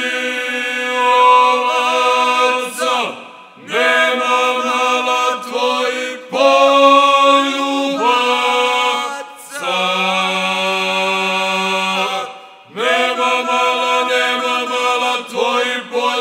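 Male four-voice group singing a Krajina folk song unaccompanied, with a low held bass note under the lead voices. It comes in about five long phrases, separated by brief pauses for breath.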